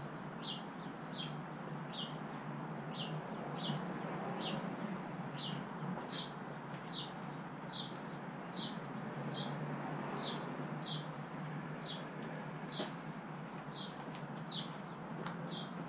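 A bird calling over and over, one short falling chirp about every three-quarters of a second, over a faint steady low hum.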